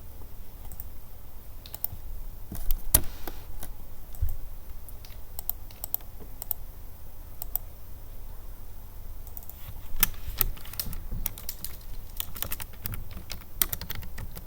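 Typing on a computer keyboard: irregular runs of key clicks with pauses between them, the busiest run starting about ten seconds in.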